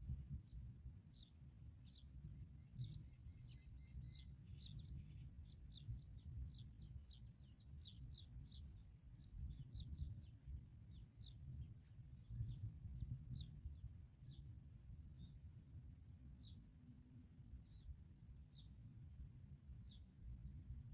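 Faint, quick high chirps from small birds, a couple a second and each sliding downward, over a steady low rumble.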